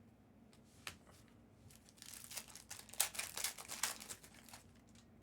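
Plastic trading-card pack wrapper crinkling, with a dense run of crackling from about two seconds in to well past the middle, after a faint click about a second in.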